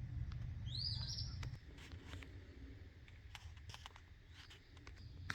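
A bird gives one quick rising chirp about a second in, over a low rumble that fades after a second and a half. A few faint clicks come near the end.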